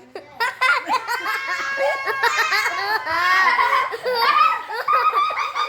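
Children laughing and giggling in high-pitched voices, with squeals.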